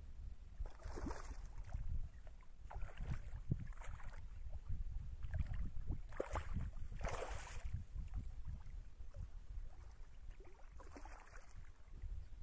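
Water splashing and sloshing in several short bursts, the strongest about halfway through, over a steady low rumble.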